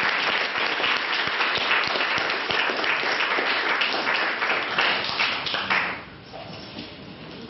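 Audience applauding at the end of a talk, the clapping dying away about six seconds in.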